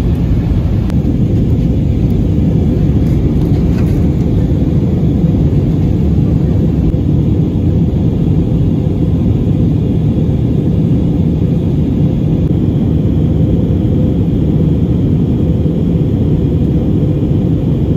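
Steady low rumble of jet engines and rushing air, heard inside the cabin of an Airbus A320-family airliner in flight.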